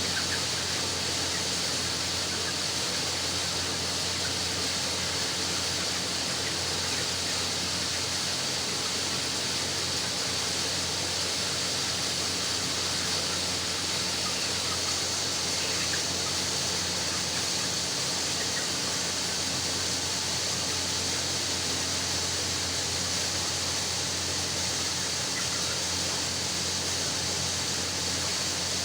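Steady, even hiss-like din of a poultry house with a low hum underneath, and a few faint short sounds standing out above it.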